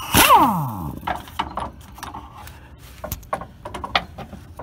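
A power tool fitted with a 15 mm socket whirs loudly and spins down with a falling whine at the start, as it works a bolt on the rear trailing arm. Scattered metallic clinks of the socket, tools and parts follow.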